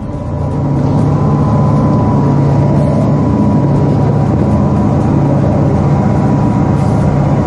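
Tank engine running steadily and loud, close up, with a steady high whine held over the low engine note.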